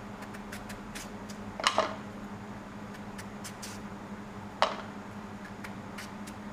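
Kitchen knife cutting slices off a peeled raw green mango held in the hand: faint crisp cuts, with two louder clacks against the plate, about two seconds in and again about four and a half seconds in. A steady low hum runs underneath.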